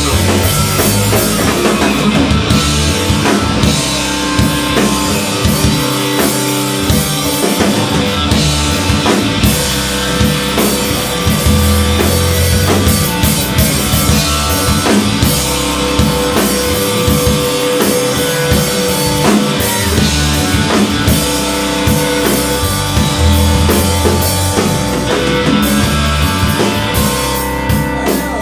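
Live rock band playing an instrumental passage: electric guitar through a Roland JC-120 Jazz Chorus amplifier, bass guitar and drum kit, loud and driving.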